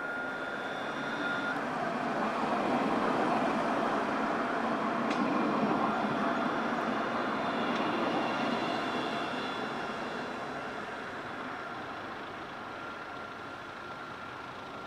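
Alstom Citadis low-floor tram passing close by on grass-covered track: the running noise of its wheels and drive builds, peaks as it goes past a few seconds in, then slowly fades, with faint steady whining tones over it.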